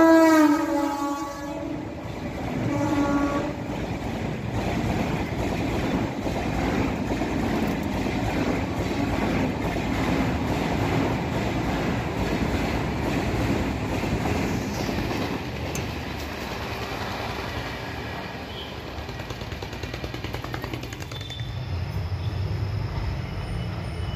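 Electric locomotive's horn dropping in pitch as the locomotive passes beneath, a short second horn blast about three seconds in, then a long passenger train rushing past with the clickety-clack of wheels over rail joints. Near the end the sound gives way to a quieter low rumble.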